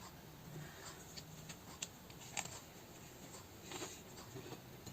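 Faint, scattered small clicks and crunches of a soft homemade oatmeal cookie being bitten and chewed.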